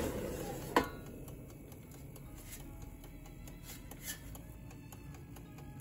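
Fast, steady ticking of a small air fryer's wind-up dial timer, with two sharp clicks, one just under a second in and one about four seconds in.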